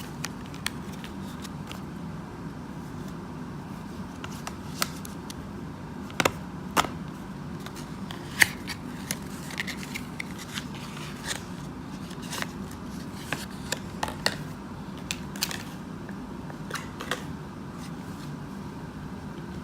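Trading cards and their opened pack being handled, giving scattered, irregular light clicks and taps over a steady low hum.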